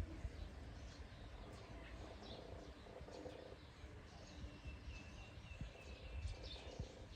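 Birds chirping faintly in short scattered calls, with one thin held note in the second half, over a low background rumble.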